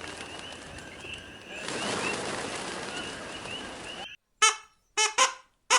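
Outdoor ambience with short, high chirps repeating over a steady hiss, which cuts off suddenly about four seconds in. After a brief silence, waterfowl give a run of short, loud honking calls, about three or four of them.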